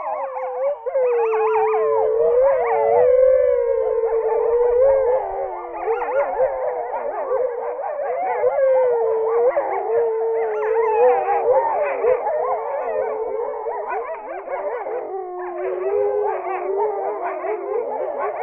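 A pack of grey wolves howling in chorus: several voices at once, some holding long steady notes while others waver and glide in pitch above them.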